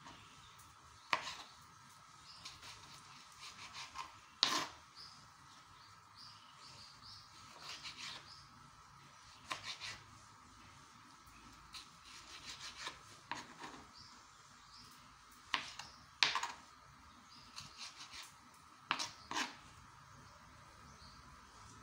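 Kitchen knife cutting tomatoes on a plastic cutting board: irregular taps and scrapes of the blade on the board, with a few louder knocks.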